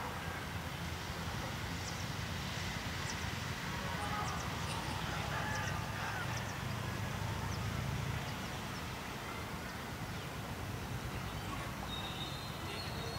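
Outdoor background noise at an open ground: a steady low rumble, with faint scattered high chirps and a short high tone near the end.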